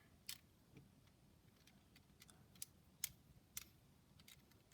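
Loose plastic pieces of a dismantled 5x5x5 Rubik's cube clicking lightly against each other as they are handled, in about half a dozen short, sharp, scattered clicks.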